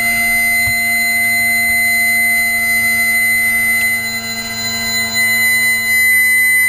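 Sabreliner 65's hydraulic pump running in the cockpit: a steady high-pitched whine over a lower hum.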